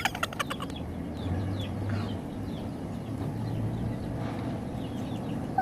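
Outdoor ambience: a steady low hum with faint, frequent bird chirps, after a few quick clicks at the very start.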